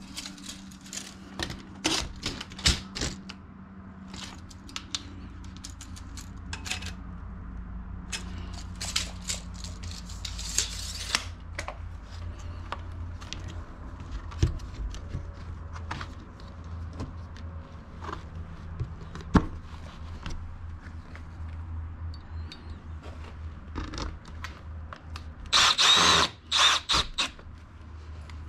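Handling sounds of an aluminum door-threshold bumper and a tape measure: scattered clicks, taps and scrapes of metal on the stone threshold, over a steady low hum. A loud rattling burst lasts about a second and a half near the end.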